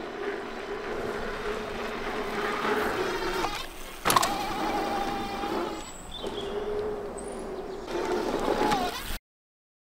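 Vitilan V3 electric fat-tyre folding e-bike riding over a dirt track, its motor giving a steady whine over the rumble of the fat tyres. There is one sharp knock about four seconds in, and the sound cuts off suddenly near the end.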